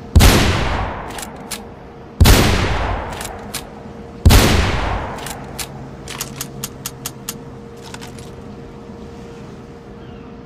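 Barrett M95 .50 BMG bolt-action rifle firing three heavy shots about two seconds apart, each with a long echoing tail. Short metallic clicks follow the shots, in a quick cluster of clicks near the end.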